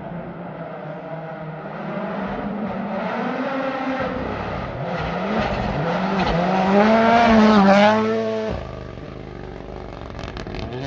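Toyota Yaris rally car's 1.6-litre turbocharged four-cylinder engine approaching at speed, its revs climbing and dropping with gear changes and growing louder. It is loudest about eight seconds in as it passes, then falls away abruptly to a lower, steadier drone.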